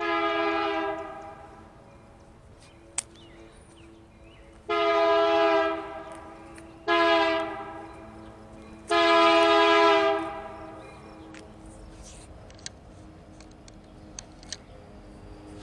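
Diesel freight locomotive's air horn sounding the grade-crossing signal as it approaches: four blasts, long, long, short, long, each a chord of several notes.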